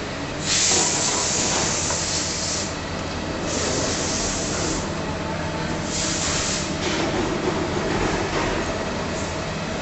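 Steady mechanical hum of running workshop machinery, with three loud bursts of hiss: about half a second in, at three and a half seconds, and at six seconds.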